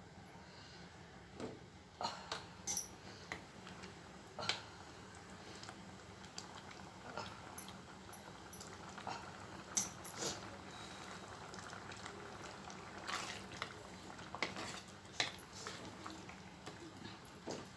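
A wooden spatula and a spoon stirring a thick lentil-and-ridge-gourd curry in a metal pot. Irregular soft knocks and scrapes against the pot sound over a faint steady hum.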